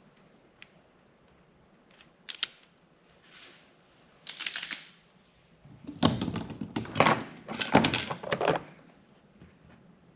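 Small hand tools and wires being handled at a workbench while wire terminals are fitted. There are a few sharp clicks, then a short rustle, then a dense run of clicks, snips and rustling that is the loudest part, stopping near the end.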